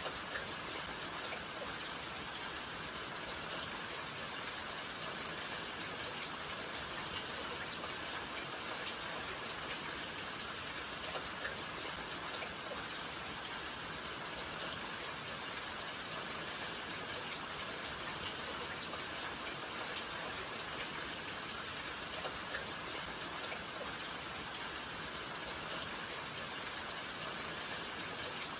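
Steady rain falling, an even hiss with scattered individual drops ticking on surfaces.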